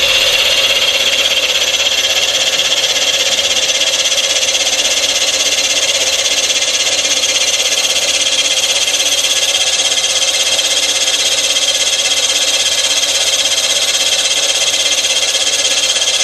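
End mill of a Rottler F90Y CNC machining center cutting the cast-iron fire deck of a Caterpillar 3500 engine block for a water-hole repair: a loud, steady, high-pitched cutting whine that comes in suddenly at the very start.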